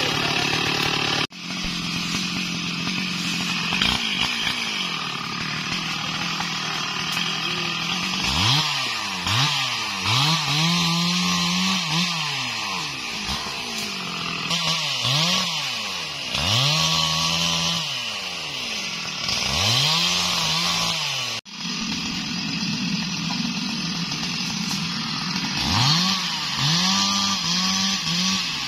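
Stihl MS 382 two-stroke chainsaw running and cutting wood, its engine revving up and dropping back over and over. The sound breaks off sharply twice.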